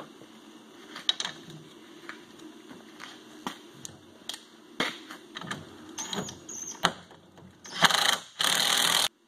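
Small metal parts clicking and knocking as a bushing and washer are fitted onto a bolt, then a cordless drill driver runs in a short burst and about a second of steady running near the end, snugging the bolt that holds a snowmobile suspension slider block.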